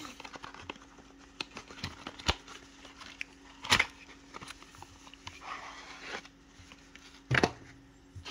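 Hands opening the end flap of a paperboard box and sliding out a knife and sheath sealed in a clear plastic bag: soft rustling and scraping of card and plastic, with three sharp clicks about two, four and seven seconds in.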